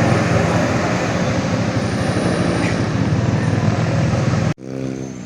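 A bus passing close on the road: loud, steady engine drone with tyre and road noise, cut off suddenly near the end.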